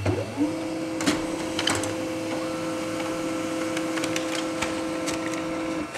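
HP Laser MFP 135wr laser printer running a photocopy job: a steady mechanical hum with a few clicks as the sheet feeds through. The hum gains a higher tone partway through and stops just before the end.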